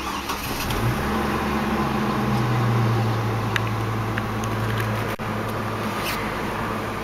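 2005 GMC Canyon's Vortec 3500 inline five-cylinder engine cranked by the starter, catching about a second in and settling into a steady idle, heard inside the cab.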